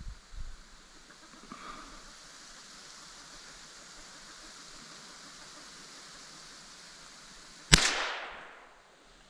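A single rifle shot near the end, fired at a grouse up in the trees, its report trailing off over about a second, over a faint steady hiss.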